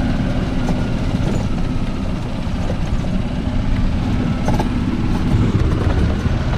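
A vehicle's steady low rumble.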